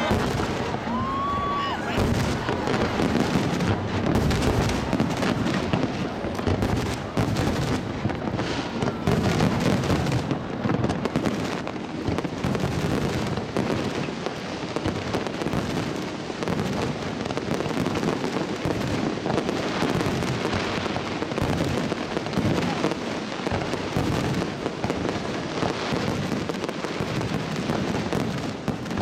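Fireworks display: a dense, continuous run of bangs and crackling from aerial shells going off one after another, with a short whistle about a second in.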